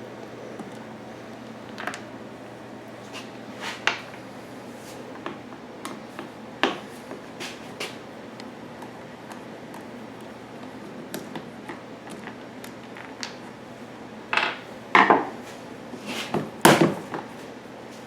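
Two Phillips head screws being taken out and the plastic side cover of a WEN 3800 generator lifted off: scattered light clicks and clacks, with a few louder plastic knocks and clatters near the end.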